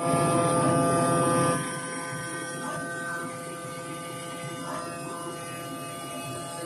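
CNC pneumatic-knife cutting machine running: a steady mechanical whine made of several steady tones over a hiss. It is louder for about the first second and a half, then settles to a lower, even level.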